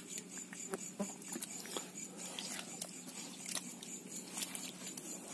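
Scattered light, wet clicks and patters from a pile of freshly caught mullet lying in shallow water in the bottom of a fishing boat, as a hand sorts through the fish.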